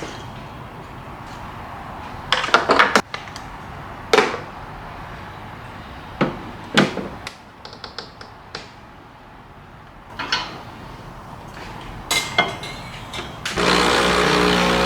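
Scattered knocks, clicks and clatters of things being handled and set down in a kitchen, with a short flurry of them a couple of seconds in. About a second before the end, a steady, louder rush begins, typical of a kitchen tap running.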